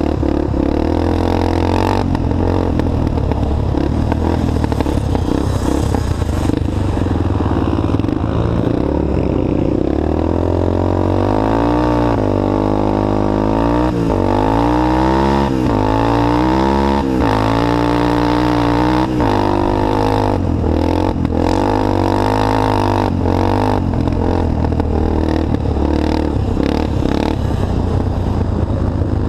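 Off-road bike's engine running hard under way, its pitch rising and falling again and again as it is revved up and eased off, with a steadier low drone at the start and the end.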